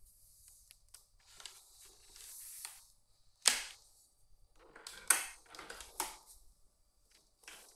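Handling noises: rustling and a series of sharp clicks and knocks, with the loudest snaps about three and a half, five and six seconds in. No motor is running.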